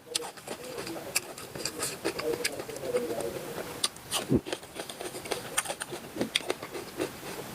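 Close-up wet chewing and mouth clicks from eating cooked octopus, many short irregular smacks. A wavering hum runs through the first few seconds, and a brief sliding 'mm' comes a little past the middle.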